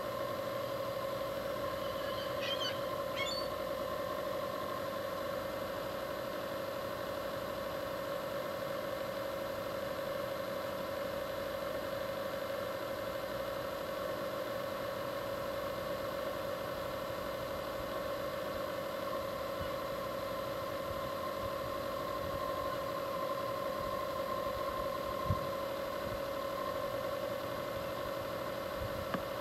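A steady machine hum with a fixed drone, and a short bird call about two to three seconds in.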